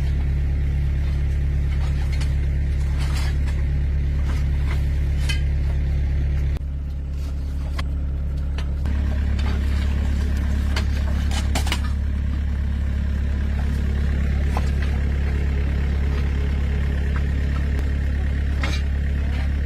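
A large vehicle engine running steadily. It eases off for about two seconds a third of the way in, then picks back up. Scattered sharp clicks and knocks sound over it.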